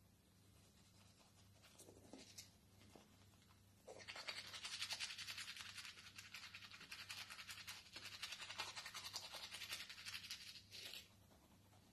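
Toothbrush scrubbing teeth in quick, scratchy strokes, starting about four seconds in and stopping about a second before the end, with a few soft rustles before it.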